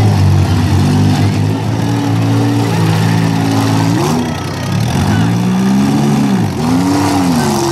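Six-cylinder demolition derby car engines running hard, held steady at first and then revved up and down in repeated swoops from about four seconds in.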